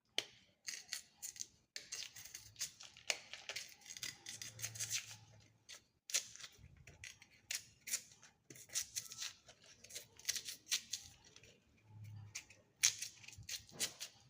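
Knife cutting and scraping raw cassava: quick, crisp, irregular strokes in short runs with brief pauses between them.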